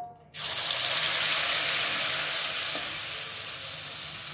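Ground red chili and shallot spice paste hitting hot oil in a wok: a loud sizzle starts suddenly about a third of a second in, then carries on as a steady sizzle that eases slowly as the paste fries.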